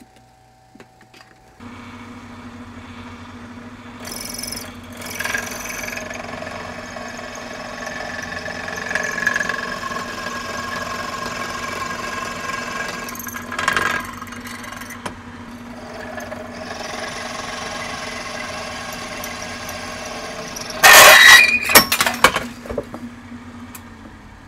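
An old drill press, believed to be from 1943, starts up and runs with a steady hum while a twist bit cuts a hole sideways into a metal rocket-engine part, the bit squealing on and off as it bites. About three-quarters through there is a loud, sharp rattling clatter, then the motor is switched off and winds down.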